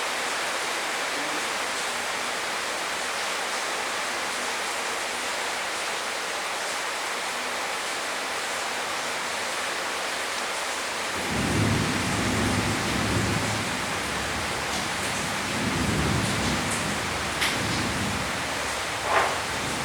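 Heavy rain falling steadily; about halfway through, thunder begins to rumble low and rolls in several swells until near the end. A couple of sharp clicks stand out near the end.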